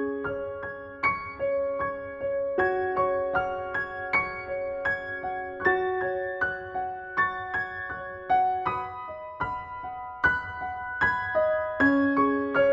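Gentle background piano music: a slow melody of single struck notes over soft held chords, a new note every half second or so.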